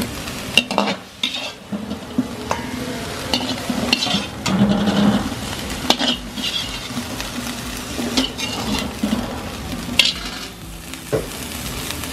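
Perforated metal skimmer scraping and knocking against a steel wok as fried chicken pieces are scooped out, with hot oil sizzling underneath. The scrapes come every second or two.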